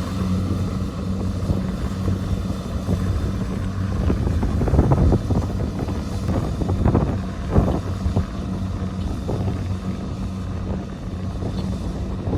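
Kubota DC-70 combine harvester's diesel engine running steadily at working speed, a constant low hum, with gusts of wind buffeting the microphone.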